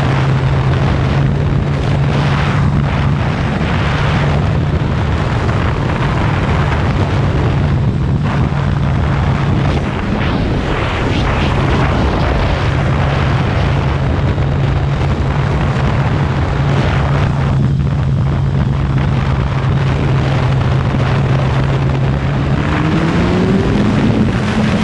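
Kawasaki ZX-14R's inline-four engine running at a steady pitch while under way, over a broad rushing noise. Near the end the engine note climbs as the bike accelerates.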